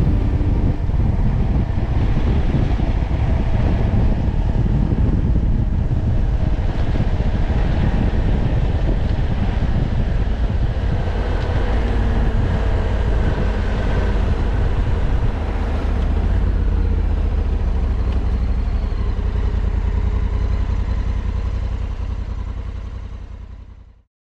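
Honda Africa Twin CRF1100L motorcycle running on the move, its engine under a heavy low wind rumble on the microphone. The sound fades out near the end.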